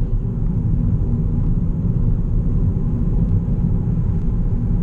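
Steady low rumble of a 2017 Ford Focus ST cruising at highway speed, heard from inside the cabin: engine drone from its turbocharged 2.0-litre four-cylinder on the stock exhaust, mixed with tyre and road noise.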